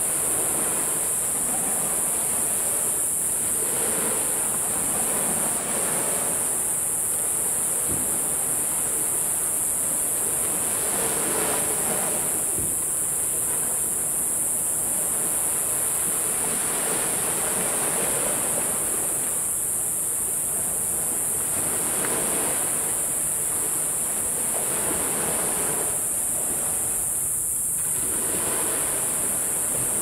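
Sea waves about a metre high breaking and washing onto the beach, the surf swelling every three to four seconds, over a steady high-pitched hiss.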